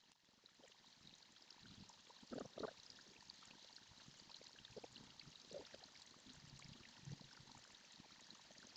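Faint, steady running water, as from a pond's trickle or stream, with a few soft low thumps, the loudest about two and a half seconds in.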